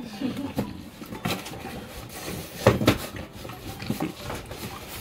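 Small cardboard box being pawed, pushed and tipped over by a French bulldog, with scattered knocks and scrapes of the cardboard. The loudest knock comes a little past the middle.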